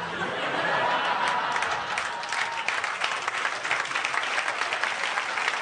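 Audience laughing and applauding, the clapping growing dense about a second in.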